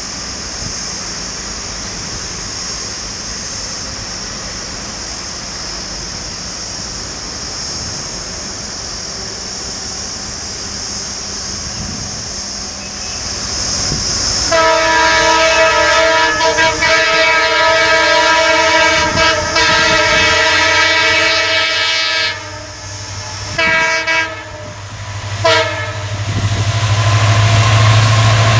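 EMD WDG4 diesel locomotive sounding its multi-tone horn as it approaches. About halfway in comes one long blast, then two short toots and another blast near the end. The locomotive's low engine drone grows loud as it nears.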